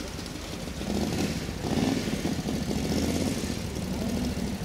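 A vehicle engine running close by, getting louder about a second in and staying up after that.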